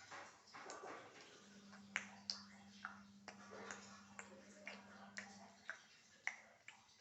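A string of short, sharp clicks at irregular intervals, about eight in all, over a faint steady hum.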